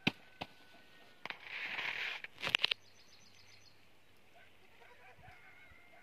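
A few sharp clicks and a short rustling hiss of about a second near the start, typical of a phone being handled, then quiet with faint high bird chirps.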